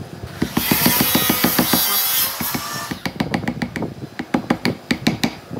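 A woodworking power tool runs for about two and a half seconds, then stops and gives way to a series of sharp knocks and taps on wood, several a second.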